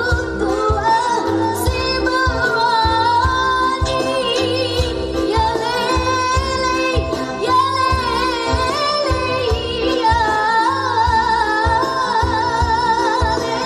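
A girl singing a qasidah song with wavering vibrato, backed by a band with keyboard, strings and a steady drumbeat.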